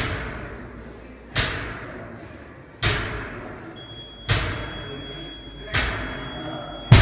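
Loaded barbell with rubber bumper plates touching down on the gym floor at each deadlift rep: six thuds, about one every second and a half, each echoing in a large hall. The last one is the loudest.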